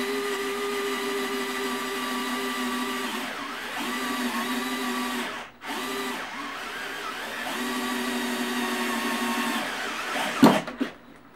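DeWalt DCF681N2 8V gyroscopic screwdriver's motor running under load as a drill bit bores through metal strut channel, its whine sagging in pitch now and then. It stops briefly about halfway and starts again, and there is a sharp knock near the end.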